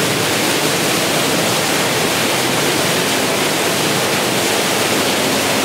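Waterfall pouring into a sea cave: a steady, loud rush of falling water.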